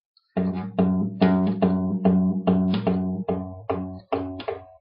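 Acoustic guitar strummed in a fast, even, percussive rhythm, about four to five chord strokes a second. It starts after a brief pause, with no singing over it.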